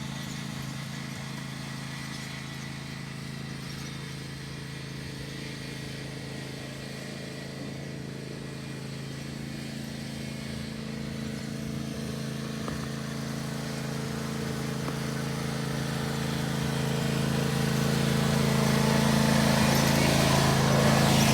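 Riding lawn mower engine running at a steady speed, getting louder over the last few seconds as it comes closer.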